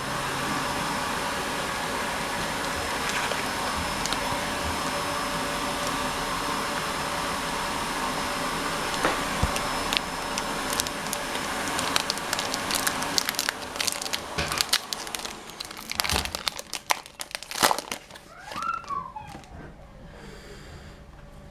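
Foil trading-card pack wrappers crinkling and tearing as they are opened, a dense run of sharp crackles in the second half. A steady rushing background noise runs under the first half, then drops away.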